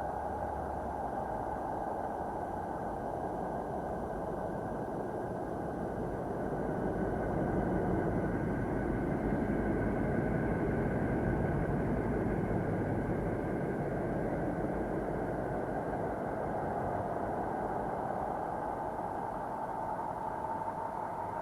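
Continuous deep space-ambience drone presented as the sound of Saturn: a low rumbling noise with a hissing hum that slowly sinks in pitch and rises again, a little louder in the middle.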